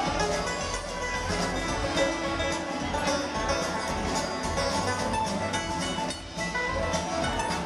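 Live string band playing upbeat bluegrass-style music: banjo, mandolin, acoustic guitar, fiddle and upright bass over drums, picked up by a small camcorder microphone in the audience. There is a short lull about six seconds in.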